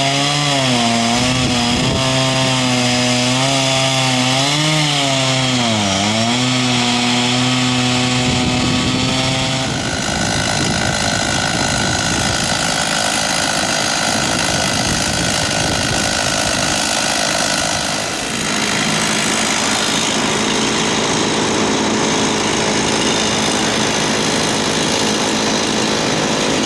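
Two-stroke chainsaw running, its pitch wavering up and down for about the first eight seconds, then a harsher, steadier sound from about ten seconds in.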